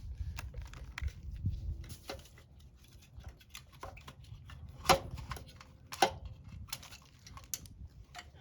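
Scattered light clicks and knocks of small metal parts and hand tools being handled during motorcycle disassembly, with two sharper clicks about five and six seconds in.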